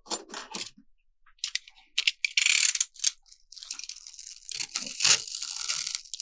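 Rigid polyurethane (PUR) foam insulation being broken and picked away by hand: irregular crunching and crackling with sharp snaps, the loudest snap about five seconds in.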